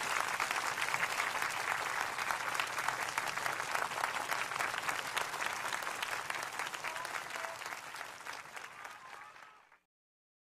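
Concert audience applauding, dense clapping that thins and fades, then stops abruptly near the end.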